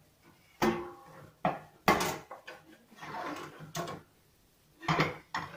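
Kitchenware being handled: a cooking pot and a plastic basin knocked and set down, giving about half a dozen sharp, irregular knocks and clatters.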